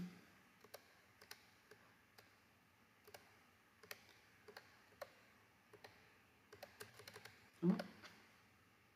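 Faint computer mouse and keyboard clicks, a dozen or more, irregularly spaced. A brief vocal sound comes near the end.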